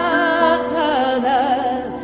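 Slow Christian worship music: a melody line wavers and slides in pitch over sustained held chords.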